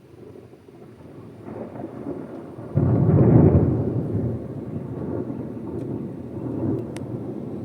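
Thunder: a low rumble builds, jumps suddenly louder about three seconds in, then rolls away slowly.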